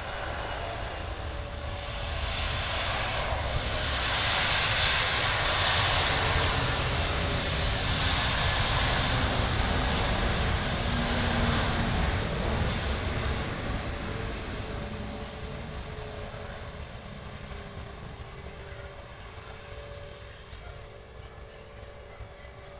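Boeing 737 MAX 8's CFM LEAP-1B jet engines passing close by on landing. The engine noise swells over the first few seconds, is loudest about nine seconds in, then slowly fades as the aircraft moves away.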